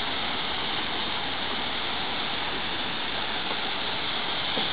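Steady rushing and splashing of a small rock waterfall pouring into a pond.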